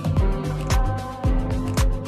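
House music from a DJ mix: a steady four-on-the-floor kick drum about twice a second, with crisp hi-hats between the beats and held synth chords over it.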